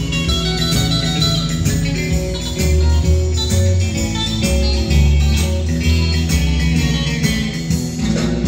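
Guitar-led music with a bass line, played back from a cassette on a 1981 Marantz SD 3510 two-head cassette deck.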